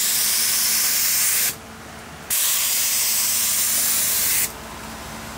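Compressed-air spray gun with a top-mounted paint cup hissing as it sprays gloss clear coat to seal a screen-printed skateboard deck. It sprays in two passes of about two seconds each, with a short break between, and stops about four and a half seconds in.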